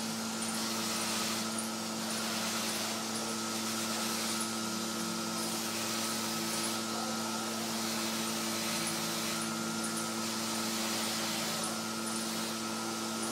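Bench polishing motor running steadily with a hum, its cloth buffing wheel brushing against a small cast bronze piece pressed to it by hand. The hiss of the wheel on the metal swells and fades about every two seconds as the piece is pressed and turned.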